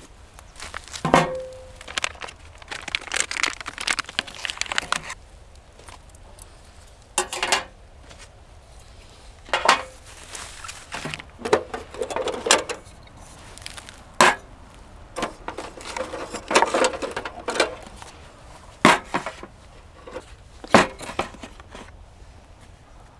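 Gear being handled by hand: a series of separate sharp knocks and clinks every second or two, with bouts of rustling and crinkling between them.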